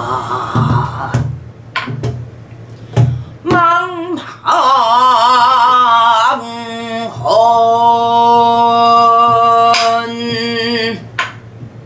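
A woman singing pansori in a husky, full voice, with wide vibrato and long held notes, keeping time with a few sparse strokes on a buk barrel drum.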